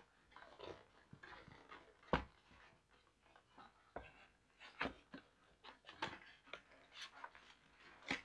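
A cardboard webcam box and its inner packaging being handled and pulled apart: soft rustling and scraping of cardboard, broken by several sharp taps and knocks, the loudest about two seconds in.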